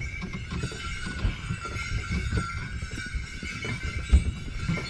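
Sleigh bells on a horse-drawn sleigh jingling continuously, over an uneven low rumble and irregular thumps from the moving sleigh.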